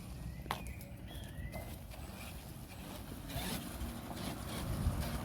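FTX Outlaw RC car driving, heard as a low rumble, with a sharp click about half a second in and a short tone that rises and falls soon after.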